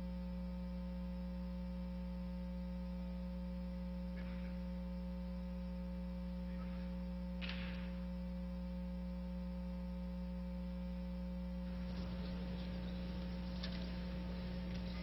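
Steady electrical mains hum with faint room noise behind it, the room noise growing slightly after about twelve seconds.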